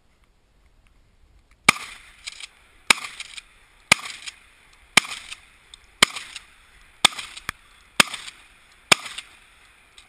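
Eight handgun shots fired at a steady pace of about one a second, starting a little under two seconds in, each sharp crack followed by a weaker echo about half a second later.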